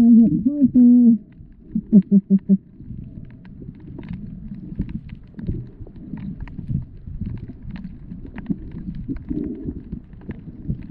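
Muffled underwater audio from a submerged camera: a low rumble of moving water with many faint scattered clicks. In the first second there is a loud muffled wavering voice-like tone, and about two seconds in a quick run of about five short pitched pulses.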